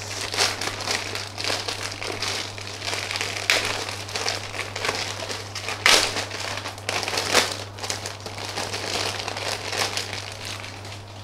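Thin plastic bags holding model-kit runners being handled, a continuous crinkling with sharper crackles now and then, dying down near the end.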